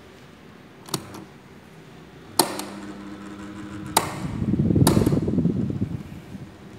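Maspion EF-309 12-inch desk fan: its piano-key speed buttons click several times, a double click about a second in, then sharp clicks near two and a half, four and five seconds, over the steady hum of the fan motor. In the middle, air from the spinning blades blows across the microphone in a loud rush for about two seconds.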